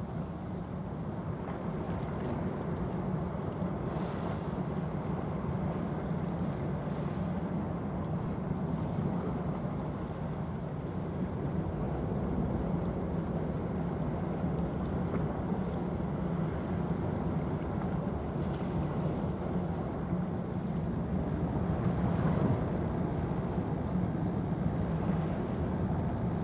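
A passing general cargo ship: a steady low engine drone mixed with the rush of water from its bow wave.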